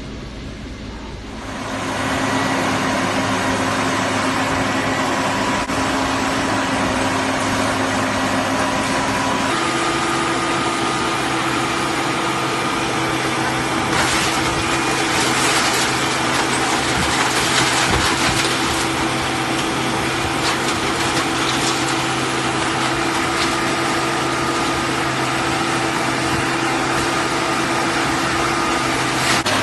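Hydraulic car scrap baler running: a steady machine hum that steps up to a higher pitch about ten seconds in, with a rougher, noisier stretch around the middle.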